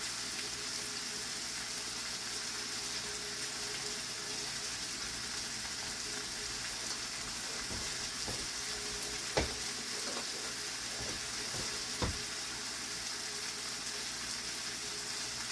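Food frying in a pan: a steady sizzle. A couple of sharp knocks, like a utensil against the pan, come about two-thirds of the way through.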